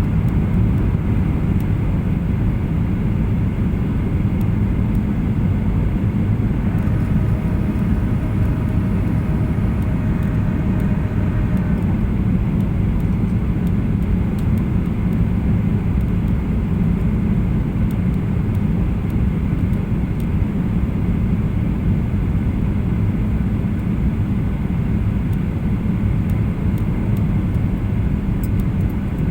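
Steady low roar inside the cabin of a Boeing 737-800 airliner, the drone of its engines and airflow. A faint high whine joins for about five seconds, starting about seven seconds in.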